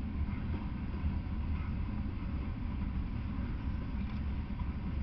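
Freight train cars rolling past on the rails: a steady low rumble of wheels and running gear, with no horn or squeal.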